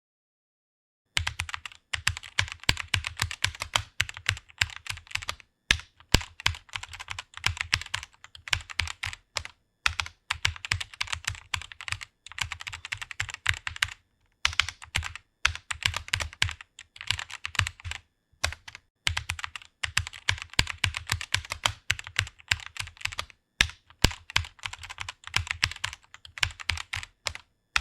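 Rapid typing on a computer keyboard: a fast, continuous run of key clicks with brief pauses between bursts, starting about a second in.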